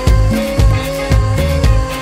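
Background music with a steady beat and a held melody line, in a funk-pop style.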